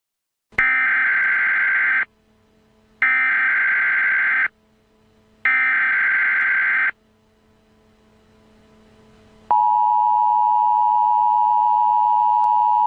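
Emergency Alert System header: three bursts of SAME digital data tones, each about a second and a half long with about a second between them, then, after a pause of about two and a half seconds, the steady two-tone EAS attention signal (853 and 960 Hz) starting about two-thirds of the way in.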